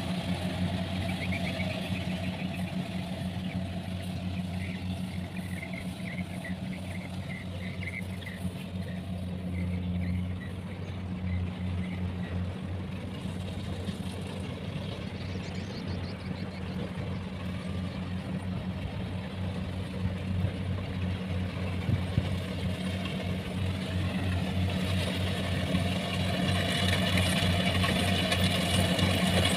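Rice combine harvester's diesel engine running steadily as it cuts, growing louder over the last few seconds as the machine comes close.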